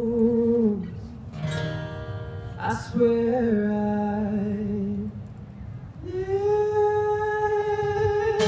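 Live acoustic music: singers hold three long wordless notes over an acoustic guitar. The first fades just under a second in, the second runs from about three to five seconds, and the third begins about six seconds in.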